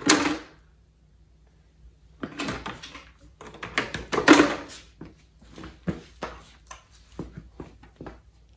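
Small plastic toy pieces being handled and sorted: a run of rustling and clattering about two seconds in, then scattered light clicks and taps.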